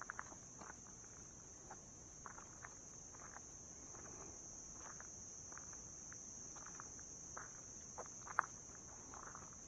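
Steady high-pitched insect chorus, with irregular crunching footsteps and one sharper click about eight seconds in.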